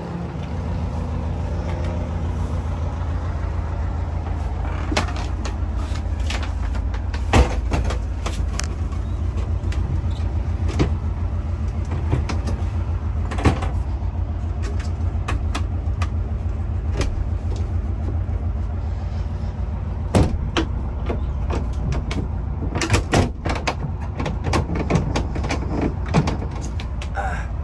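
Volkswagen Bus engine running with a steady low rumble heard inside the cabin. Sharp clicks and knocks of cabinet doors and latches are scattered over it, loudest about a third of the way in, halfway, and twice near the end.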